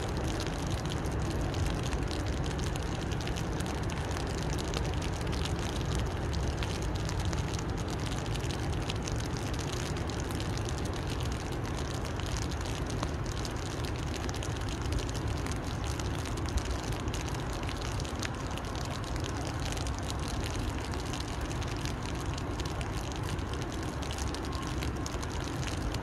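Steady rain falling on a river: an even hiss dotted with fine ticks of drops, over a steady low rumble.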